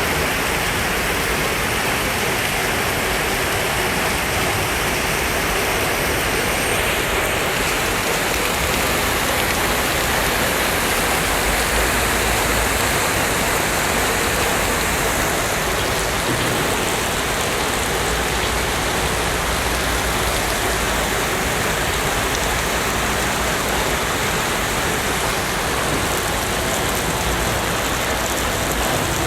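Heavy rain falling steadily, an even hiss of rain on surfaces with no letting up.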